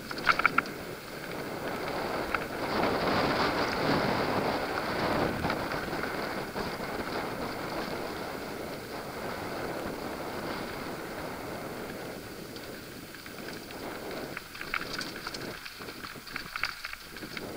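Mountain bike riding down dirt singletrack, heard from a camera on the bike or rider: tyre noise over dirt and wind rushing over the microphone. There are a few short, sharp rattling noises near the start and again near the end.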